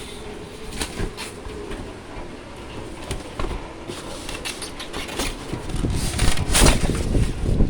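Packaging of a new window-type air conditioner being handled and pulled apart during unboxing: scattered clicks, knocks and rustles that grow louder and busier in the last couple of seconds.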